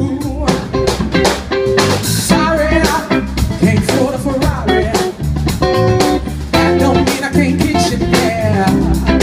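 Live band music played loud through a PA: drum kit and electric guitar over a pulsing bass line, with a steady beat.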